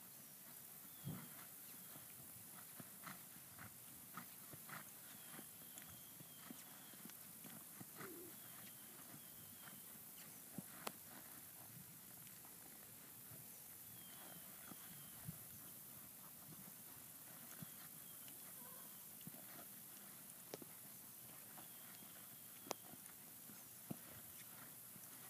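Near silence with a steady hiss, broken by scattered faint thuds and clicks of a horse's hooves in arena sand. A short high chirping call repeats every few seconds.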